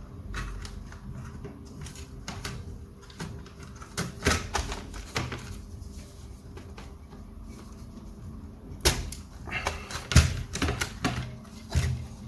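Irregular clicks, taps and knocks of hard objects being handled on a repair bench, louder and closer together near the end.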